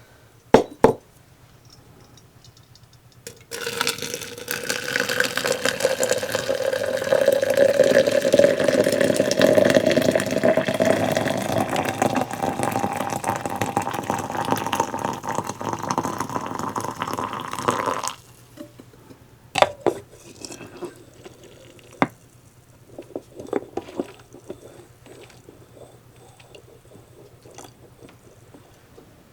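Water running steadily into a container for about fifteen seconds, its pitch rising as the vessel fills, starting and stopping abruptly. A few short knocks and clinks follow near the end.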